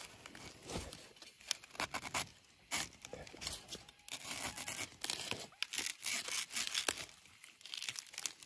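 Crisp cracking and tearing with dry rustling: young bamboo shoots being snapped and broken off by hand, their crispness showing in the sharp cracks. The cracks come thickest in the second half.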